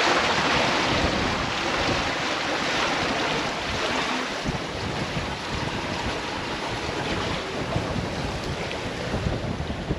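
Wind buffeting the microphone over the rush and splash of sea water streaming past the hull of a sailing yacht making way through choppy ocean: a steady, even roar of noise.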